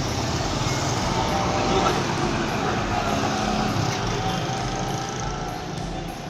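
Steady street traffic noise: vehicle engines and tyres passing, with no single sound standing out.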